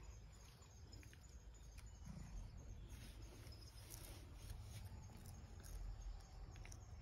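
Faint, irregular crunching clicks of a cat chewing a dried sardine (niboshi).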